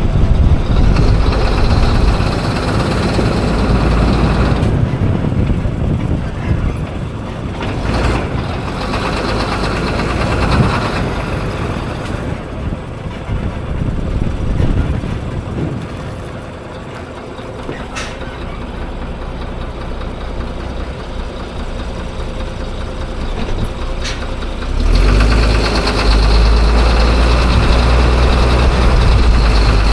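Mitsubishi Fuso FM260 truck's 6M60 7.5 L six-cylinder diesel engine running with an uneven, intermittent knocking clatter, the sign of failing fuel injectors. It is loud at first, quieter through the middle, and louder again with a deeper rumble from about 25 seconds in.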